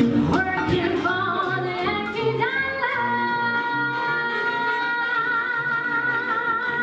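A vocal group singing in close harmony over backing music: the voices climb in steps, then hold one long chord of several notes for about four seconds, the final chord of the song.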